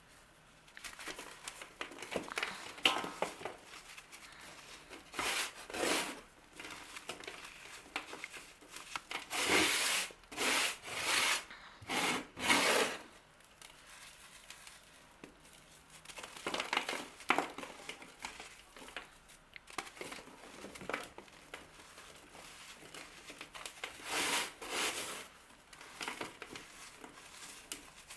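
Dry scraping and crunching strokes of a crumbly material being cut or crushed by hand, coming in irregular bursts. The loudest cluster sits in the middle, with a few more strokes later.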